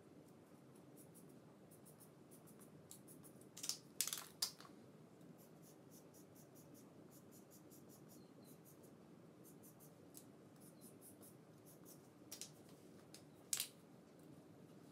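Faint scratching of highlighter and felt-tip pen strokes on a paper towel, in quick repeated strokes. A few louder plastic clicks and knocks about four seconds in and again near the end, as markers are swapped and put down on the tile floor.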